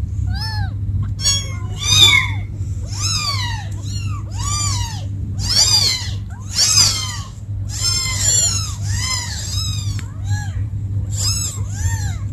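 Several young kittens meowing over and over, high thin calls that rise and fall and overlap one another, with a steady low hum underneath.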